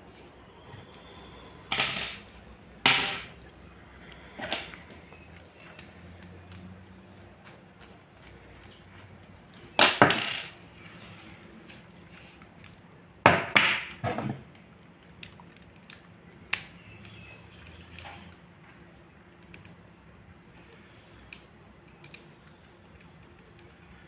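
Metal clacks and clicks from handling and dismantling a picked Lockwood 334M45 padlock with small tools: a few sharp, separate knocks, with light ticks of small parts and tools between them.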